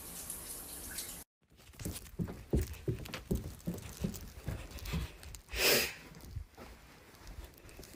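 Shower water running with a steady hiss, cut off abruptly about a second in. Then a run of soft thumps of footsteps on carpet, about three a second, with a short noisy rush near the middle.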